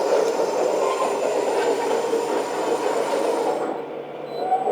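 1/10 scale RC hydraulic bulldozer running, with its electric drive motors and twin hydraulic pumps making a steady mechanical noise. The noise dips briefly near the end.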